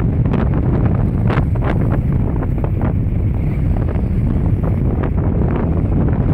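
Storm wind buffeting the microphone, a loud, steady low rumble, with short sharp sounds scattered through it.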